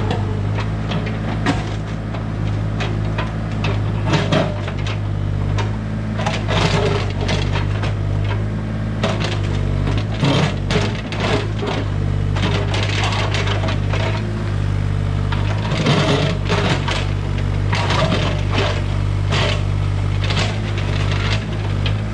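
Bobcat E32 compact excavator's diesel engine running steadily while its bucket pries at a stone retaining wall, with irregular knocks, cracks and scrapes of stone blocks breaking loose and tumbling.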